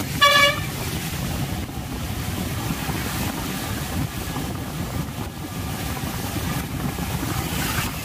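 Wind buffeting the microphone on a moving motorbike, a steady rumbling rush of air. A brief, loud beep sounds near the start.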